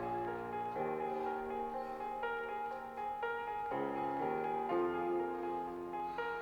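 Calm background piano music, held notes and chords changing about once a second.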